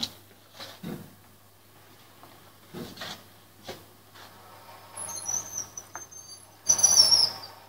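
Student-built electric winch with a gear ratio of about 1800:1, driven by its small motor to lower a heavy weight: a steady low hum, a few knocks in the first four seconds, then high-pitched squeaks and chirps from about five seconds in, loudest with a harsh rasp near the end.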